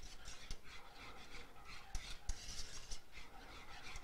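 Whisk scraping quickly and hard around a saucepan of velouté sauce, breaking up chunks of roux that have been stirred in. There are a couple of louder knocks about halfway through.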